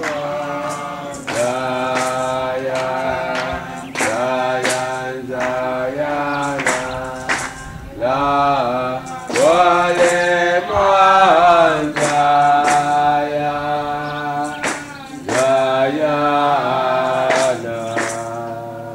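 Rastafarian chant sung in slow, held phrases, over steady, regular drum strikes.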